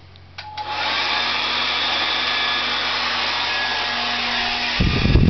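Handheld hotel hairdryer switched on with a click about half a second in, then blowing steadily with a faint motor whine. Near the end a loud low rumble of wind buffets the microphone as the air stream hits it.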